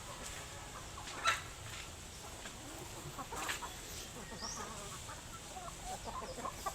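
Chickens clucking, a scatter of short calls with a louder one about a second in and another about halfway, then a run of quick small clucks near the end.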